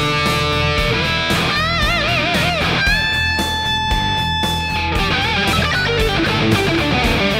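Electric guitar through a Sonicake Pocket Master amp modeler on a high-gain distorted tone. It plays a riff: low chugs, a note with wide vibrato about two seconds in, a long held note from about three seconds, then quick lead notes.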